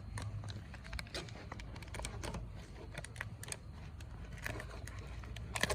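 Plastic meat packaging crinkling and crackling as it is handled to work the ground bison out, a scatter of small irregular clicks with a louder crackle near the end.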